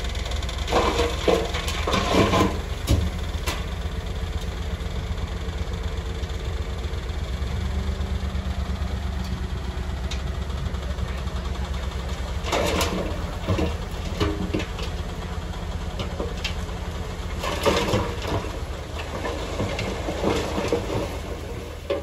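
Bulldozer's diesel engine running with a steady low rumble. Bouts of clanking and rattling come near the start, around the middle and again toward the end.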